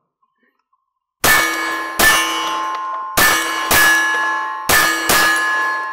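Six shots from a 9mm Smith & Wesson M&P FPC carbine, fired as three quick pairs. Each hit rings a steel target, leaving a lingering metallic ringing that fades out after the last pair.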